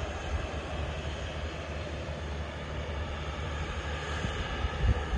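Turboprop airliner's engines running steadily as it taxis, a steady rumble with a faint whine. Near the end, gusts of wind thump on the microphone.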